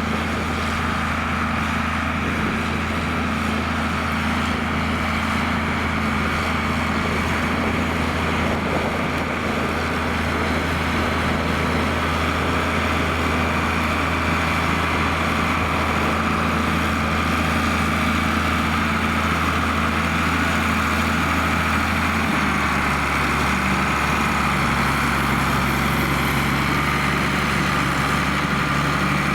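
John Deere 4850's six-cylinder turbo diesel engine running steadily while ploughing with a six-furrow plough. About three-quarters of the way through, its note steps down lower.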